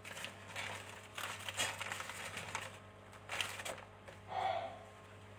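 Hands rustling and crinkling a wrapping while rolling sushi, in a few short bursts, with a brief soft tone about four seconds in.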